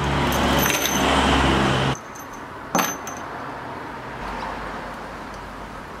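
A loud, steady mechanical hum that stops abruptly about two seconds in, then a single sharp metallic clink, like a small metal countertop connector set down on the timber slab, over a quieter steady background.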